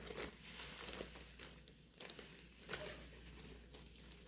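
Faint kitchen handling sounds: light taps, clicks and rustling as more sugar is measured out with a cup.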